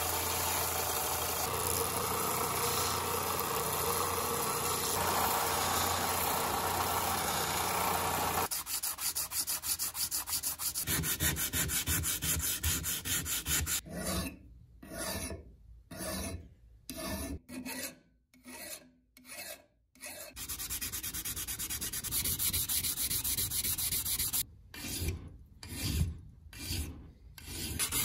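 A bench belt sander running with a steel tool handle held against the moving belt, a steady abrasive noise over the motor's hum, for the first eight seconds or so. About halfway through, a hand file rasps across the edges of the steel handle clamped in a vise, in separate strokes with short pauses between them.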